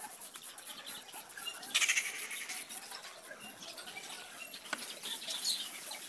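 Graphite pencil scratching on paper in quick shading strokes, loudest briefly about two seconds in.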